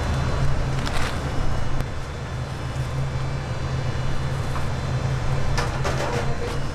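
Steady low hum of background machinery, with a few brief rustles of paper being handled about a second in and again near the end.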